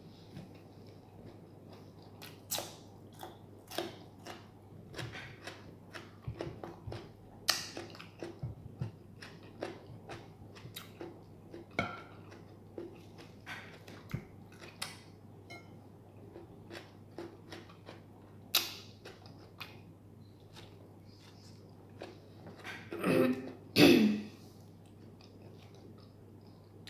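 A person chewing a bread sandwich close to the microphone, with small wet mouth clicks and lip smacks scattered throughout. Near the end come two short, louder sounds from the throat.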